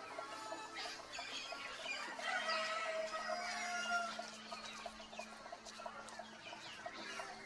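Morning birdsong with farmyard chickens clucking among many calling wild birds; one longer drawn-out call runs from about two to four seconds in.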